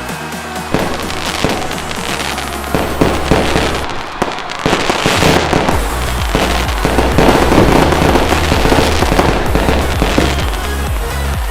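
Fireworks bursting and crackling in rapid succession, starting under a second in with a short lull around the middle, over background music with a steady bass.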